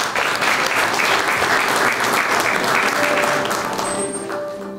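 Audience applauding, fading out near the end as quiet instrumental music starts to play.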